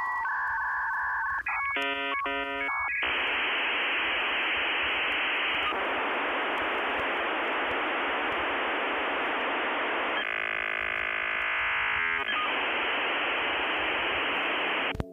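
Dial-up modem connecting: short steady tones, then a quick run of touch-tone dialing beeps about two seconds in, then a long hiss of handshake noise. The hiss briefly changes to a buzzing chord of tones near the end, then returns and cuts off suddenly.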